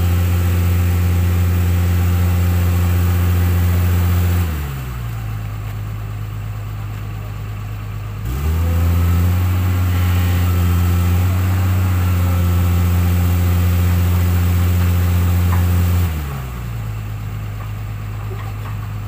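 Hydraulic excavator diesel engine held at high revs, dropping to idle about four and a half seconds in. It rises back to full revs about four seconds later, holds there, and drops to idle again near the end.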